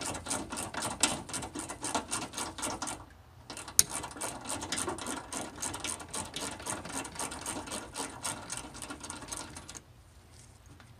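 Hand ratchet with a 10mm socket clicking rapidly as it turns out a radiator mounting bolt. The clicking pauses briefly about three seconds in, gives one louder click just after, and stops near the end.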